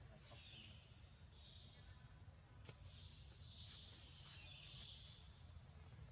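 Faint forest insect chorus: a steady high-pitched drone with buzzy pulses recurring every second or two, over a low rumble.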